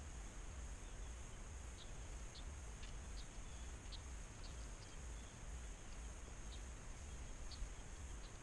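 Faint rural outdoor ambience: a steady high-pitched insect drone, with a dozen or so short high chirps scattered through it, over a low wind rumble on the microphone.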